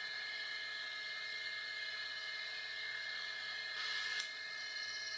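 Milling machine spindle running a Wohlhaupter boring head that is boring out an aluminium hand wheel with a sharp, highly positive insert: a steady high-pitched whine, a little louder for a moment about four seconds in.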